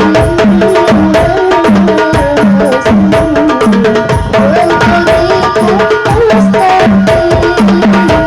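Hadroh music: frame drums and a deep, pitched bass drum keep a steady beat, about two strokes a second, under a melody.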